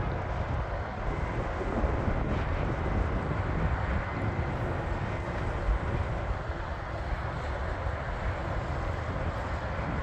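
Twin-engine business jet rolling along the runway, its engines giving a steady jet roar with a faint whine. Wind rumbles on the microphone underneath.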